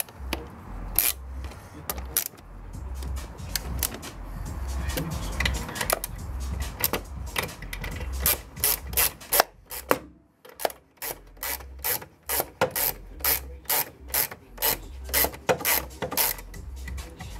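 Hand ratchet clicking as a fastener is worked under the bonnet, in short uneven runs at first. After a brief pause about ten seconds in, it settles into a steady run of two to three clicks a second.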